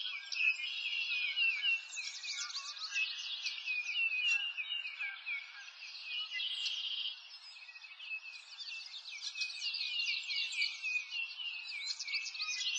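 Many small birds chirping and trilling at once, a continuous high-pitched chorus of quick, overlapping calls. It thins briefly about seven seconds in.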